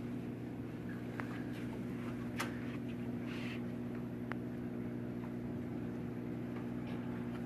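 Steady low mechanical hum with a few faint clicks and taps over it.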